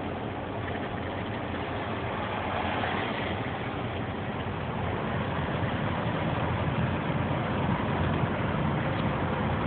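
Inside a semi-truck's cab on the move: the diesel engine drones steadily under road and wind noise, growing gradually louder from about halfway through.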